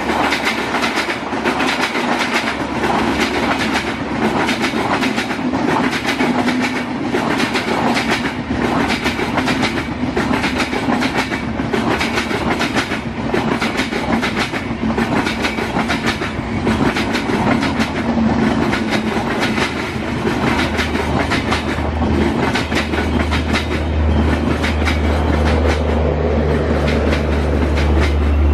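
Tejas Rajdhani Express LHB passenger coaches passing at speed, their wheels clattering over the rail joints in a steady, rapid clickety-clack. A deep rumble grows stronger in the last third.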